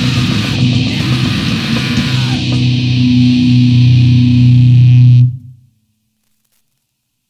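Noise-grind band playing loud: heavily distorted guitar and bass holding a low note under a constant high hiss, building up and then cutting off abruptly about five seconds in, followed by silence.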